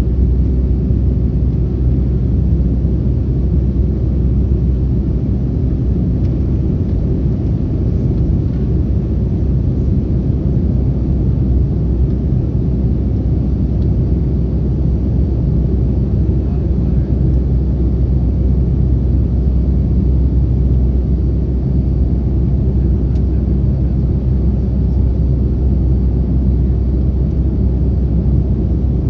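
Boeing 757-200 jet engines and airflow heard from inside the passenger cabin: a steady, loud low rumble with a constant drone running through it.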